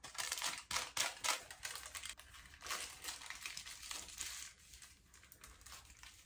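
Aluminium highlighting foil crinkling in irregular crackles as it is folded up and pressed against the scalp around a dye-coated section of hair. The crackling is busiest in the first half and thins out toward the end.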